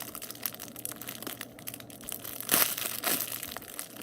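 Thin plastic packaging crinkling and crackling as a squishy toy is handled and squeezed, with two louder crinkles about two and a half and three seconds in.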